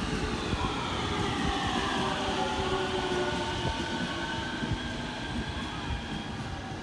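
Electric train passing, its motor whine of several tones falling in pitch as it goes by and then holding steady, over the rumble of the wheels on the rails.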